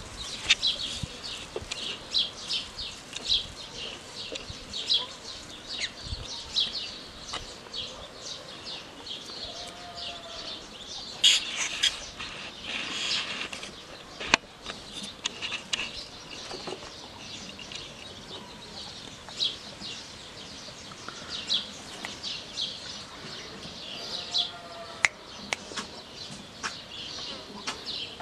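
Outdoor bird chirping: many short, high chirps scattered throughout, with two short calls, one near 10 seconds and one near 25 seconds. A plastic bag also rustles and crinkles at times as the cat caught in it moves.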